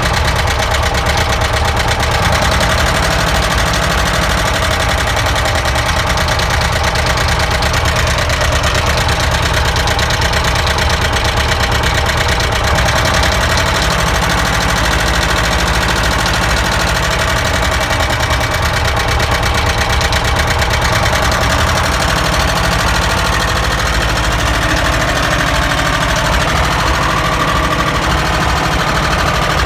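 ZAZ car engine idling steadily with a knock.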